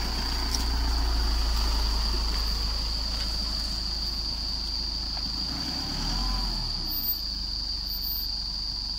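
Isuzu D-Max 3.0 Ddi four-cylinder turbodiesel running at low revs as the 4x4 pickup crawls down a muddy, grassy slope, with a steady high-pitched whine over it and a short knock late on.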